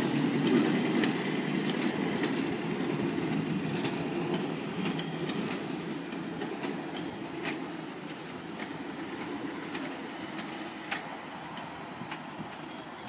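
Hi-rail truck rolling away along the railway track on its rail guide wheels, its running noise fading steadily, with sharp clicks about once a second as the wheels cross rail joints and points.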